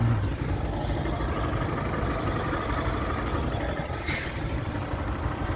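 Highway traffic: heavy truck and car engines running at a road junction, a steady low rumble, with one short sharp noise about four seconds in.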